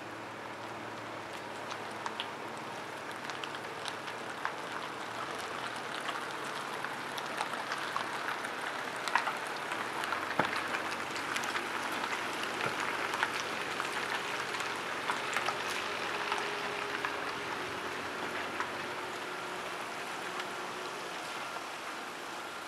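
A car rolling slowly past on a slushy street: tyres hissing and crackling, louder in the middle and easing off near the end.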